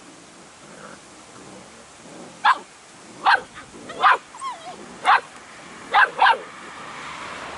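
Airedale Terrier puppies yapping in play: six short, sharp yaps starting about two and a half seconds in, the last two in quick succession, with a brief wavering whine between them.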